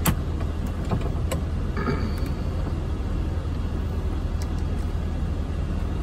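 Steady low rumble of an idling engine, with a few sharp clicks and metal taps as a ratchet is fitted to a wall-mounted torque tester.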